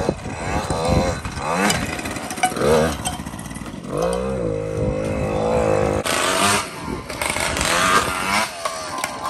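Small off-road motorbike engine revving up and down as it is ridden, its pitch rising and falling again and again.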